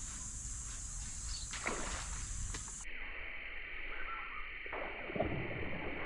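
Quiet outdoor ambience: a steady high-pitched hiss that shifts to a lower band about three seconds in, with a few faint knocks.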